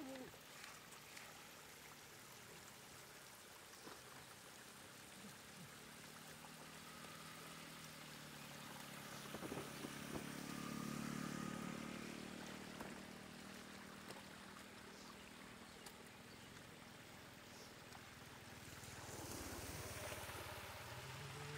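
Shallow floodwater trickling over a muddy road, with a faint engine hum that swells about halfway through and fades again.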